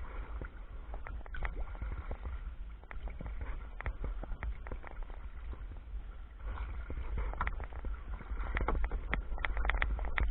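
Water splashing and slapping against a sea kayak's hull on open lake water, with many small irregular slaps over a steady low rumble.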